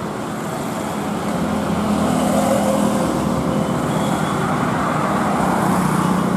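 Street traffic: motor vehicles passing on the road with a steady engine hum and tyre noise, growing louder about a second and a half in.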